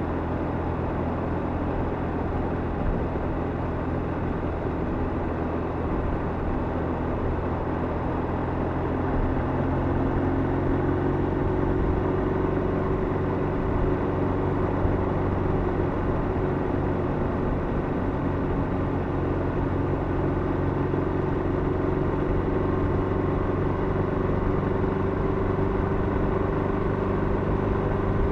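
Motorcycle engine running at cruising speed in a road tunnel. Its note rises slowly from about a third of the way in as the bike speeds up a little.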